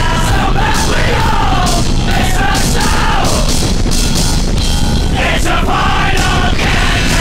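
Loud heavy rock music with a singing voice and driving drums.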